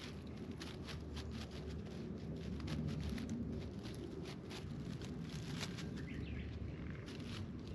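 A cat with its head down in dry grass and leaves, chewing and rustling the stems: a run of irregular crisp clicks and crackles over a steady low rumble.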